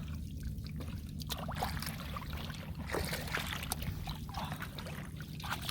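Wet mud and shallow water squelching, dripping and splashing as hands work through a muddy rice field, with scattered short wet clicks over a steady low hum.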